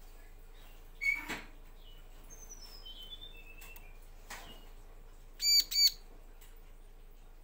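Bar-winged prinia (ciblek) calling from a cage. A harsh call comes about a second in, then a faint run of falling whistled notes, then two loud, sharp, high chirps in quick succession past the middle.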